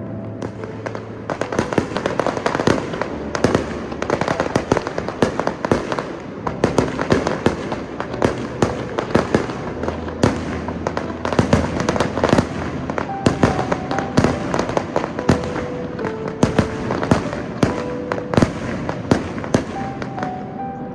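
Fireworks display at full barrage: a dense, rapid run of sharp bursting reports, several a second, starting about a second in and thinning near the end.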